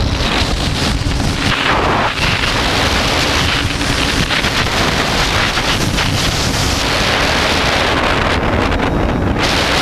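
Wind buffeting the microphone of the camera riding on a quadcopter in flight, with the drone's electric motors and propellers humming faintly underneath.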